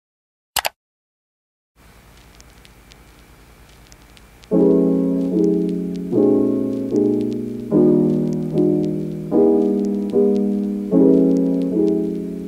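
A short click, then a faint crackling hiss, then background piano music: a chord struck about every 0.8 seconds, each one ringing out and fading before the next.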